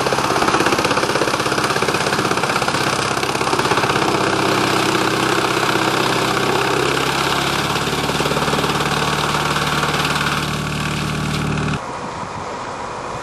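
Tractor engine running steadily under load, driving a PTO-powered Dutch Dragon EC9045 wood chipper, with the rush of wood chips being blown out of the discharge chute. The sound cuts off suddenly near the end, leaving a much quieter rushing noise.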